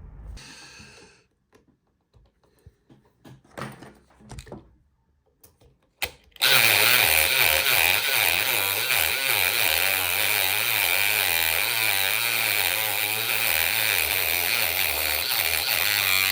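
A few light handling clicks, then a power tool starts about six seconds in and runs steadily and loudly for about ten seconds, used to open a lock cylinder.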